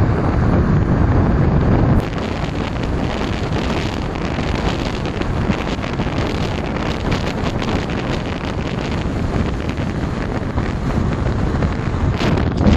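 Wind buffeting the microphone of a camera mounted low on the outside of a moving car, beside the front wheel, mixed with tyre and road noise. Steady heavy rushing, a little louder in the first two seconds.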